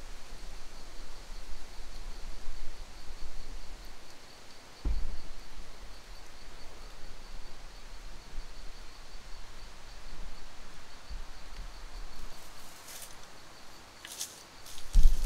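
A steady, rapidly pulsing high insect trill over fluctuating low wind rumble on the microphone, with a low thump about five seconds in, some rustling near the end, and a louder thump just before the end.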